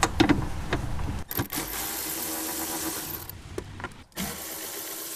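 Milwaukee M12 cordless ratchet running, spinning 10 mm bolts out, in two steady whirring runs of about two seconds each with a short break between. A few light clicks come in the first second as the socket is fitted.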